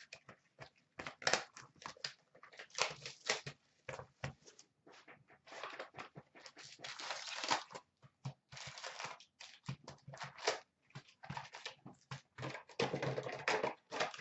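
Clear plastic shrink-wrap and Upper Deck hockey card packs being torn open and handled, giving irregular crinkling and rustling with small clicks. The busiest stretches come about six to seven seconds in and again near the end.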